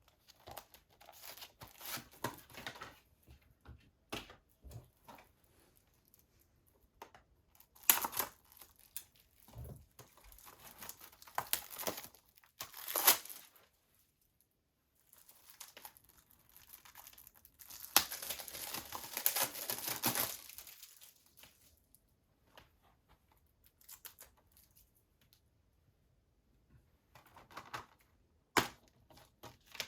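Plastic shrink wrap being torn and crinkled off a Blu-ray case, in several irregular spells of crackling, the longest a few seconds past the middle. A sharp click near the end.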